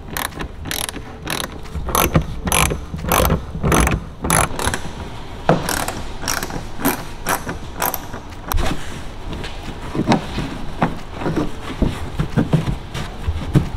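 Ratcheting hand driver with a T25 Torx bit clicking in quick, even strokes, about three clicks a second, as it backs out wheel-well liner screws. The clicking stops about two-thirds of the way through, leaving softer knocks of handling.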